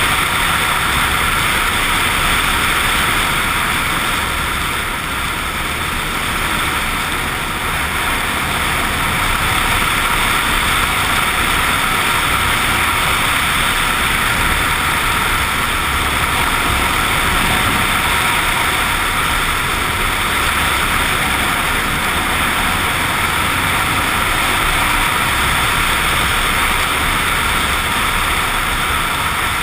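Suzuki XF650 Freewind's single-cylinder four-stroke engine running steadily under way, mixed with wind and road noise.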